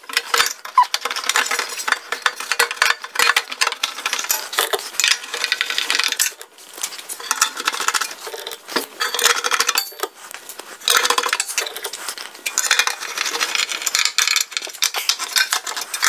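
Screws being driven by hand with a screwdriver into the sheet-metal combustion fan cover of a Suburban RV furnace. Rapid small metallic clicking and scraping comes in bursts, with brief pauses between screws.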